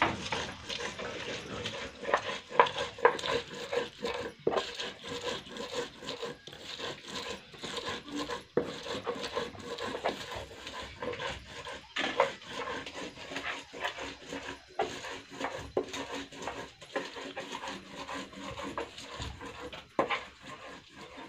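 A dog panting, a run of quick, uneven breaths.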